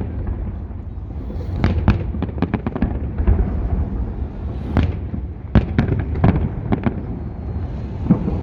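Fireworks salute: many sharp bangs of shells bursting, coming in irregular clusters over a continuous low rumble.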